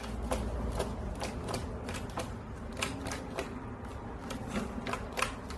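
Small dog lapping water from a plastic floating-disc water bowl: a run of wet clicks, about three a second.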